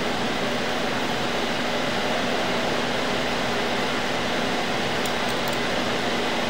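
Steady fan-like machine noise with a faint low hum, unchanging.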